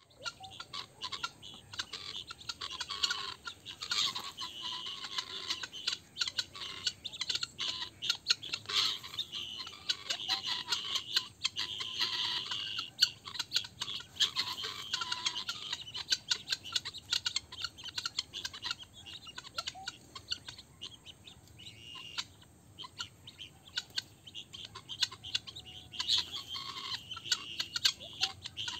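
A flock of helmeted guineafowl giving their alarm call at a snake: many birds chattering at once in rapid, overlapping calls. The chatter thins out for a few seconds past the middle and picks up again near the end.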